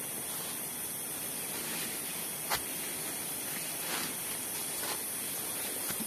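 Steady, high-pitched hiss of a forest insect chorus, with a single sharp click about two and a half seconds in and a few faint ticks later.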